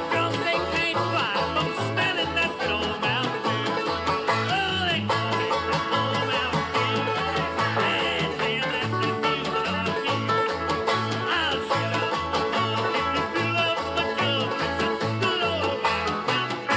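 Upbeat country band music led by a banjo playing a fast instrumental break, over a bass line of alternating low notes on the beat.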